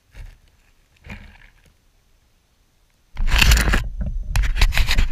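Handling noise on a small onboard camera as it is picked up out of a bush: a couple of faint rustles, then about three seconds in loud, close scraping and knocking of fingers and leaves against the microphone.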